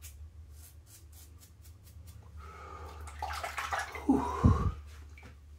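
Stainless steel double-edge safety razor scraping through slick shaving lather in a run of quick, short strokes. After about two seconds a louder rushing noise builds, and a brief pitched vocal sound follows near the end.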